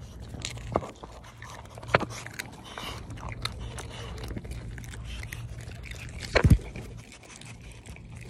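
Handling noise from a phone pressed and rubbed against a dog's fur: scattered scrapes and clicks, with one loud thump about six and a half seconds in. A steady low hum runs underneath.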